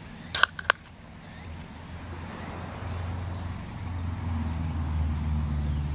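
Beer can pulled open: a sharp crack and hiss from the tab about half a second in, then two quick clicks. After it, a low, steady engine drone from a vehicle builds up and holds.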